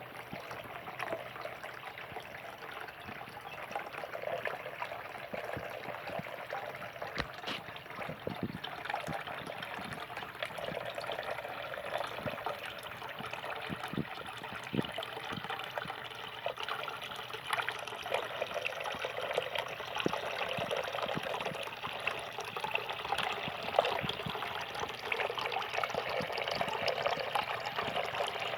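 Cascading waterfall fountain running steadily: water spilling and splashing down its tiers, with many small splashes over a continuous trickling rush.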